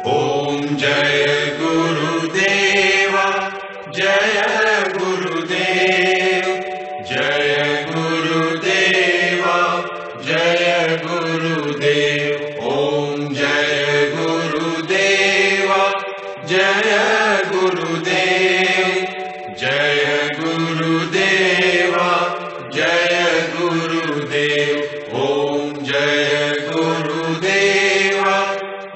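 Hindu devotional aarti chanted in short repeated melodic phrases, each a second or two long, with a steady low tone underneath.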